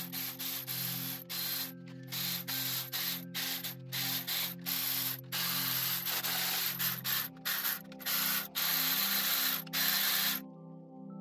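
Milwaukee M12 cordless 3/8" ratchet running in short stop-start bursts, then a few longer runs, as it backs out cam cap bolts on a cylinder head. It stops about ten seconds in. Quiet background music plays underneath.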